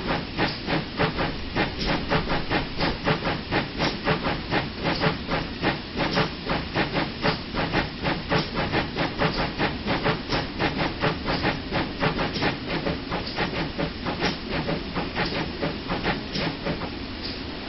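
GWR 0-6-0 pannier tank steam locomotive working hard, its exhaust chuffing in quick, even beats over a steady hiss of steam. The beats fade away near the end.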